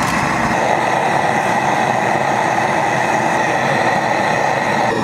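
An engine running steadily at a constant pitch, with no separate knocks or strikes standing out.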